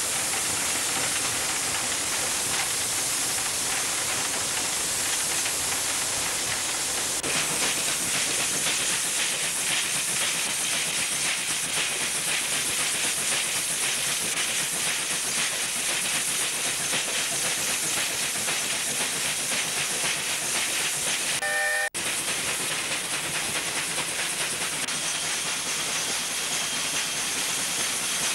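South African Railways class 19D steam locomotive running with a goods train, heard from the footplate: a steady rush of steam and running noise, with a faint even beat through the middle. A brief high pitched tone sounds a few seconds before the end, and then the sound cuts out for a moment.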